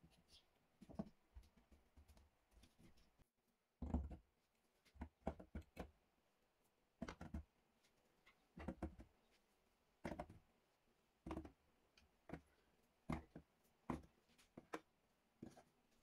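Chisels and screwdrivers being slotted one by one into a wooden wall-mounted tool rack: a string of short knocks and taps, some in quick pairs or threes, with pauses between. The loudest knock comes about four seconds in.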